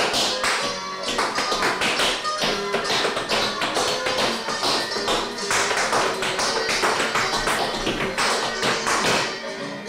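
Tap dancing: tap shoes striking in quick rhythmic steps, several taps a second, along with recorded music.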